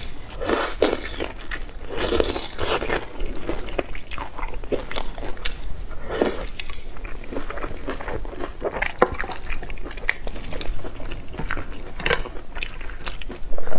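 Close-miked biting and chewing of pan-fried kimchi crystal dumplings dipped in chili sauce: wet, sticky mouth sounds with many small clicks.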